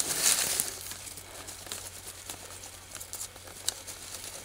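Dry leaves and brush rustling and crackling under a deer carcass as it is handled, loudest in the first half-second, then quieter with a few scattered light clicks.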